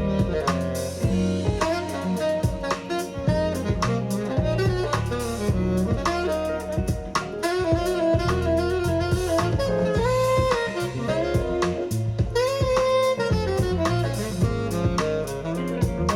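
A jazz recording played back over a hi-fi amplifier and speakers: a lead melody line with bending, sliding notes over a busy drum kit and bass.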